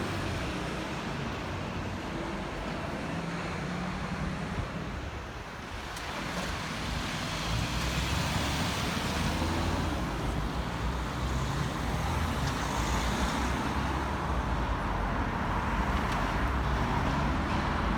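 Road traffic: a steady wash of passing cars' engine and tyre noise, easing off briefly about five seconds in and then building again.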